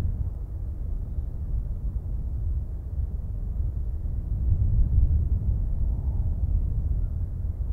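Low, uneven rumble with nothing high-pitched in it, swelling a little about five seconds in.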